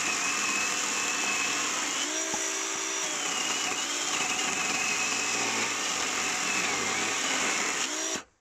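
Parkside PKSA 20-Li B2 20 V cordless electric chainsaw cutting through a 10–12 cm log. Its motor whine wavers and dips under load, and the sound stops abruptly near the end.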